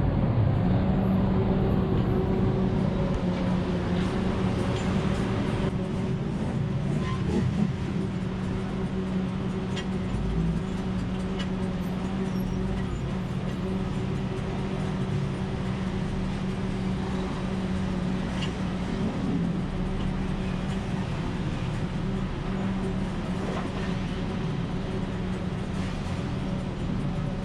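Road traffic with a steady engine hum, as from a vehicle idling or running slowly close by.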